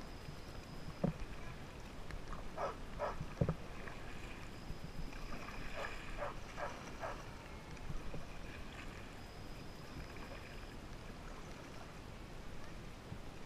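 Kayak paddle strokes in calm water: the blades dip and splash in short runs, with two dull knocks about one and three and a half seconds in.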